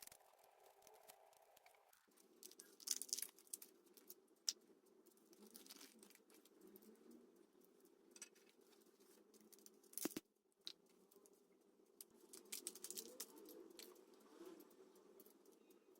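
Foil wrapper of a Kinder Joy egg being torn and crinkled by hand, in short scattered bursts with a few sharp clicks and taps.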